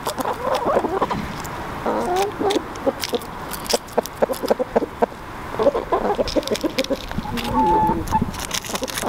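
Flock of chickens clucking close by, in several short bouts of calls with many sharp ticks in between.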